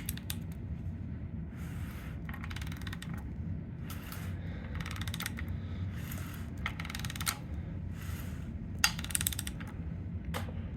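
GM 6.5 diesel's 3D-printed prototype gear drive timing set being turned over by hand: a run of short clicking, rattling strokes, roughly one a second, as the gear teeth and the tool work through the set.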